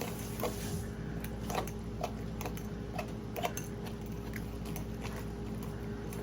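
Drained canned chicken and a raw egg being mixed together in a bowl with a utensil: soft, wet squishing with light, irregular clicks and taps.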